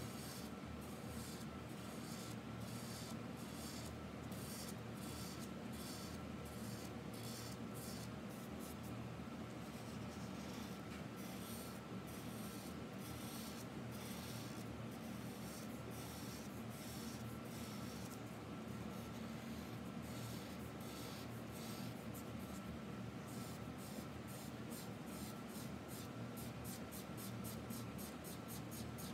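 Green felt-tip marker scribbling back and forth on paper, a fast run of short scratchy strokes as a large area of grass is coloured in, quickest near the end. The strokes come faster than by hand because the footage is sped up. A faint steady hum runs underneath.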